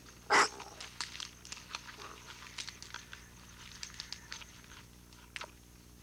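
Paca gnawing and chewing a fig: a run of sharp, crunching bites and clicks. One loud, short noise comes right near the start, louder than everything else.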